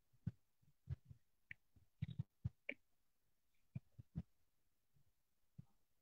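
Near silence broken by about a dozen short, faint thumps and clicks at uneven intervals. This is audio breaking up over a failing internet connection on a video call.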